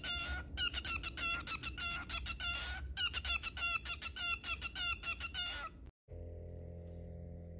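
Cockatiel calling in a quick run of short, squawky chirps, about three or four a second, each call bending in pitch. It stops about six seconds in, and a steady low hum follows.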